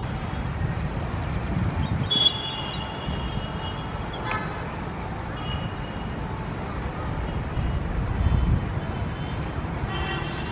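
Steady low rumble of a Shatabdi Express's coaches rolling away over the rails. A few short high-pitched tones break in, about two seconds in, briefly around four and five seconds, and near the end.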